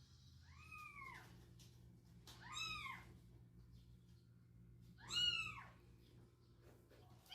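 Three meows of a cat, each an arched rising-then-falling call, spaced a couple of seconds apart; the third, about five seconds in, is the loudest.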